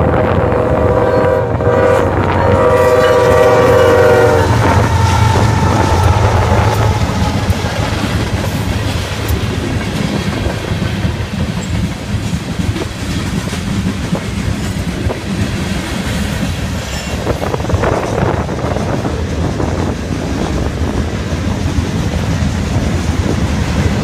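Union Pacific freight train's locomotive air horn sounding two chords, the second longer, as the train nears a grade crossing. The locomotives then pass with a low diesel rumble, followed by the steady clickety-clack of freight cars' wheels over the rail joints.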